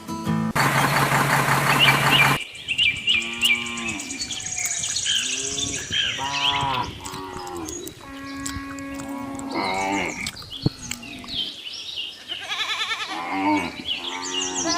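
Cattle mooing several times, a long loud moo first and then shorter calls, with birds chirping in the background.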